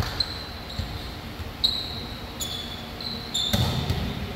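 Sneakers squeaking on a gym court floor in several short, high chirps, with a few dull thuds on the floor, the loudest near the end.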